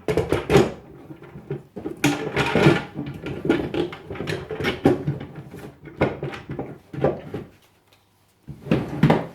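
Irregular clattering, knocking and rustling of hands working the wiring and plastic enclosure of a changeover switch, with a brief lull before a last burst near the end.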